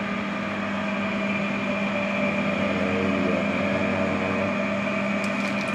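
Steady hum of a fan motor running, a low drone with a fainter high whine held above it.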